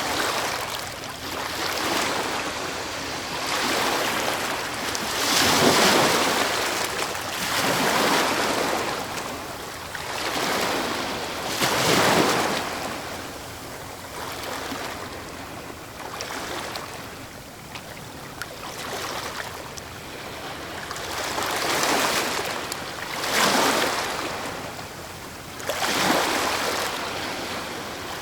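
Ocean waves breaking on a beach. Rushes of surf swell and fade every few seconds, with the loudest breaks about six and twelve seconds in and again near the end.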